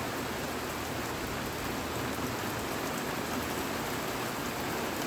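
Rainstorm downpour: steady rain hissing evenly on surfaces, with scattered faint drop ticks.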